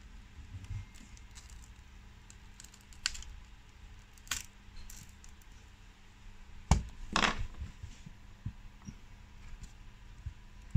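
Scattered clicks and light taps of a cracked tablet screen and its plastic frame being handled and pried apart, with two sharper knocks about seven seconds in.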